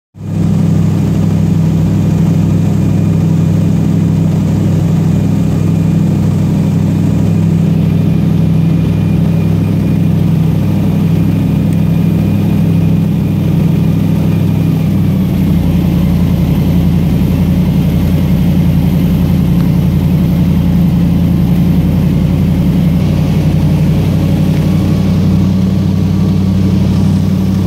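Airboat engine and propeller running steadily and loudly; about halfway through, the engine note shifts and settles lower.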